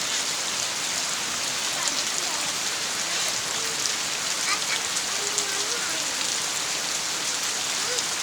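Steady heavy rain falling, a dense even hiss with scattered sharper drop ticks. Faint voices rise briefly a few times, around the middle and near the end.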